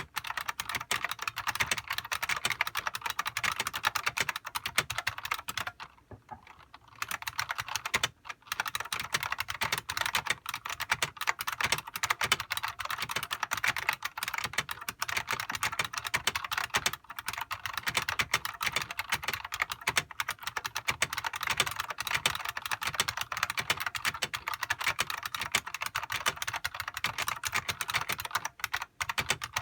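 Fast continuous typing on a Unicomp Classic buckling-spring keyboard: rapid, loud clicky keystrokes with the springs' ping, broken by a pause of about a second a few seconds in and brief gaps later.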